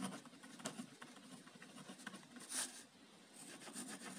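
Faint scratching of a pen writing on paper and drawing a wavy underline, with a short, louder stroke about two and a half seconds in.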